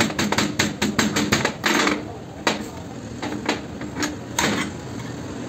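Rapid, even metal-on-metal tapping on a wheel hub during wheel bearing work, about six light strikes a second. It stops after about a second and a half; then comes a brief scrape and a few separate knocks.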